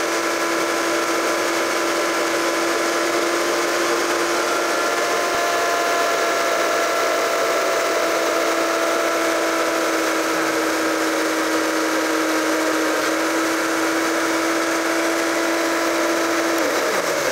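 High-powered countertop blender running steadily at a constant pitch, grinding walnuts and water into a smooth gravy. The motor begins to wind down at the very end.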